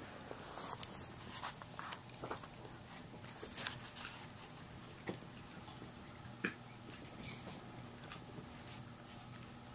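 Puppies playing with plush toys on carpet: scattered soft clicks, scuffs and rustles at uneven intervals as they scamper, bite and drag the toys.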